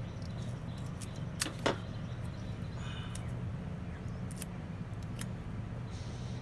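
Steady low background hum, with two sharp clicks close together about a second and a half in.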